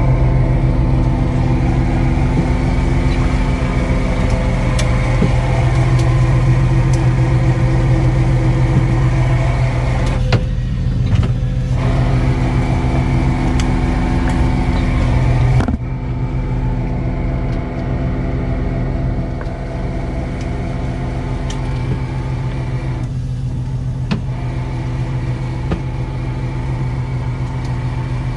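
Fishing boat's engine running steadily, a low, even drone, dropping slightly in level about halfway through.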